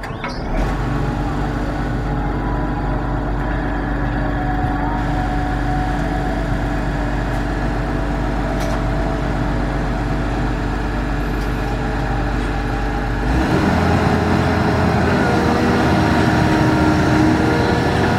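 Cat 320C excavator's diesel engine running steadily, growing louder and changing tone about thirteen seconds in.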